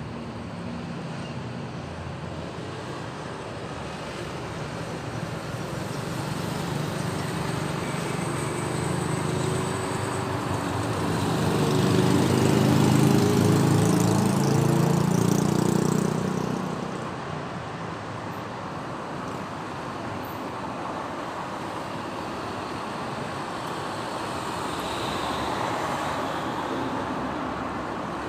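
City road traffic running steadily, with one vehicle's engine swelling as it passes close, loudest about twelve to sixteen seconds in, then dropping away.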